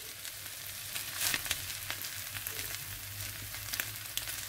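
Egg, flaked fish and straw potatoes sizzling in a nonstick frying pan while a spatula stirs and scrapes through them, with many small clicks and a low hum underneath. The pan has just come off the heat and the eggs are setting in its leftover heat.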